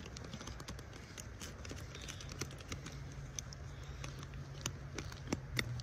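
Hands handling gear on a backpack: a run of small clicks and light clinks, the sharpest near the end, over a low steady hum.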